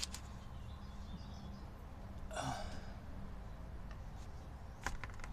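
A man's short breathy vocal sound, not a word, about halfway through, with a sharp click at the start and another near the end over a steady low rumble.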